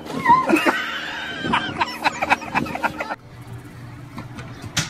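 Children shrieking, with a quick run of sharp splashing impacts as they jump against an inflatable pool. The sound cuts off suddenly about three seconds in, leaving a low hum.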